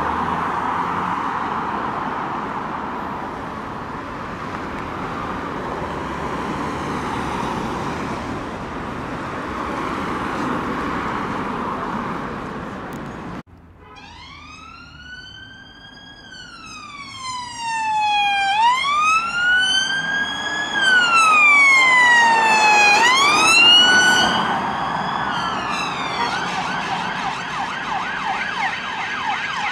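Road traffic running past on a busy road. Then a police car siren starts up in a slow rising-and-falling wail, about one cycle every two seconds, growing louder as the unmarked police car approaches, and switches to a fast yelp near the end.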